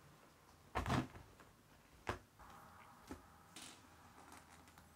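A cat pouncing on and batting at a tape measure being pulled over carpet and rug: a loud scuffle about a second in, a sharp tick about two seconds in, then lighter ticks and a short scrape.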